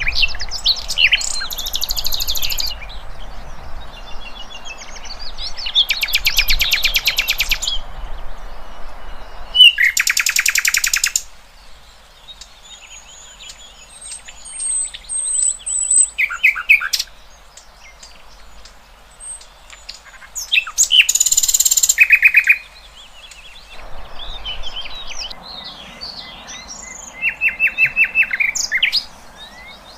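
Several songbirds singing and chirping, with rapid trills, thin high whistles and short repeated notes. A steady background hiss drops out abruptly about ten seconds in and comes back near the end.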